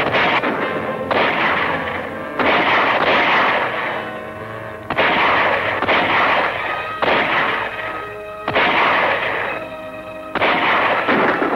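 Gunshots in a gun battle, about seven sharp reports spaced a second or two apart, each ringing out and dying away. Orchestral film score plays underneath between the shots.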